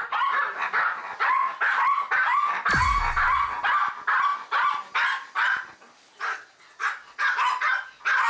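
Two small dogs barking rapidly and without letup, about two barks a second: excited, jealous barking while their owner is in the room with the cat. A single low thump about three seconds in.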